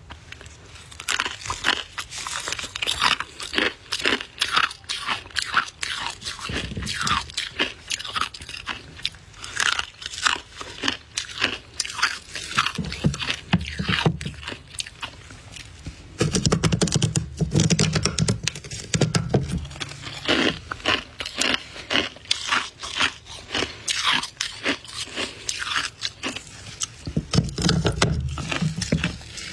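Close-miked crunching and chewing of soft white ice: rapid crackly bites and crushing, with heavier chewing spells now and then.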